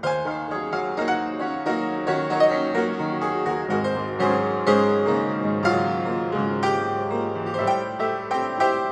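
Background instrumental music, piano-led, with a quick run of struck notes several times a second.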